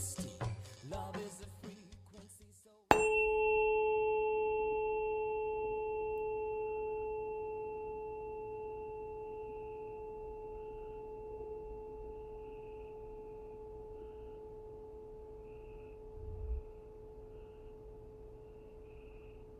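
The last of a song fades out, then about three seconds in a tuning fork is struck and rings one steady pure tone with a faint high overtone, slowly dying away. A soft low bump is heard near the end.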